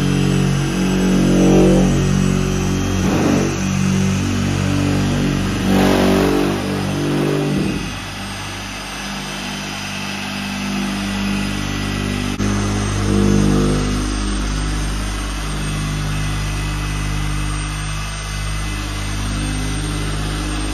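Dual-action orbital polisher running with a wet foam pad, working fine-cut compound into single-stage paint. The motor's hum shifts in pitch and level and drops somewhat about eight seconds in.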